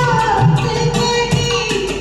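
Instrumental music from a Hindi film song's karaoke backing track: a hand-drum rhythm with a gliding melodic instrument line over it.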